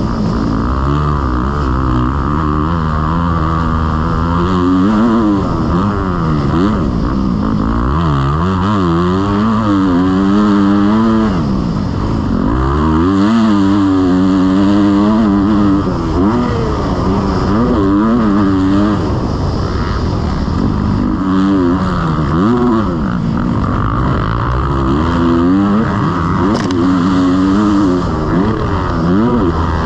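Motocross bike engine revving hard and falling back again and again, its pitch climbing as it accelerates and dropping through shifts and braking, several times over.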